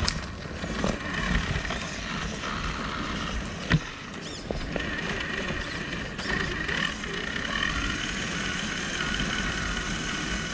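Radio-controlled scale rock crawler driving over bare granite, its electric motor and gears whining and rising and falling in pitch with the throttle, mixed with tyres scraping and crunching on the rock. A single sharp knock about a third of the way in.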